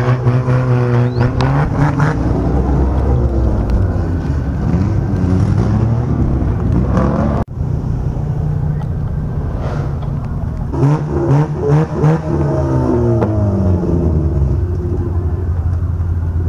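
Car engines running close by as cars drive slowly past, revving so the pitch rises and falls near the start and again around eleven to thirteen seconds in. The sound drops out for an instant about seven seconds in.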